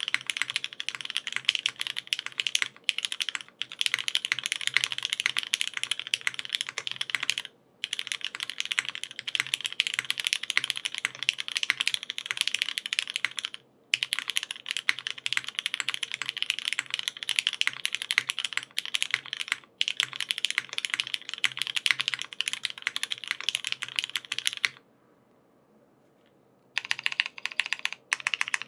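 Fast continuous typing on a Geonworks F2-84 mechanical keyboard with lubed linear Cherry MX Black switches, a 1.2 mm FR4 plate, O-ring mount and GMK keycaps: a dense stream of keystroke clacks. It breaks briefly twice, then pauses for about two seconds near the end before typing resumes.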